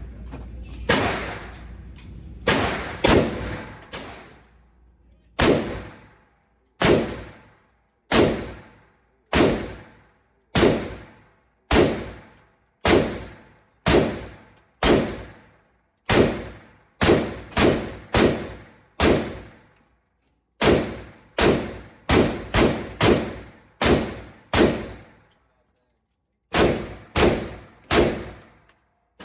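Gunshots at a shooting range: a long string of about thirty single shots, at first roughly one a second and then in quicker clusters, each followed by a short echo.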